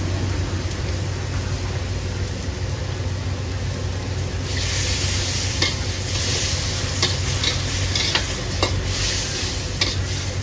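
Shrimp and sauce sizzling in a wok while a cook stirs with a metal wok spatula that scrapes and clicks against the pan several times. The sizzle grows louder about four and a half seconds in, over a steady low rumble.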